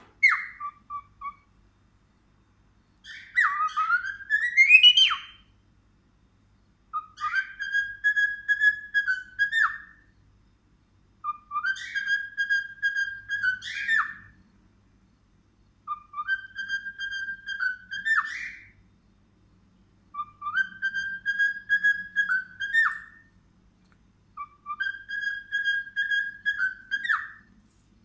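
Cockatiel singing. A short call comes first, then a loud rising whistle. After that the same warbling phrase repeats five times, each about three seconds long: it starts low, holds a steady pitch and ends with an upward flick.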